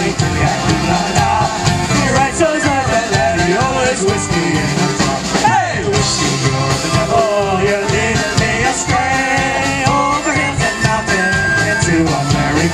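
Live Irish folk band playing an up-tempo break between verses: an ornamented melody over strummed strings, bass and a steady drum beat.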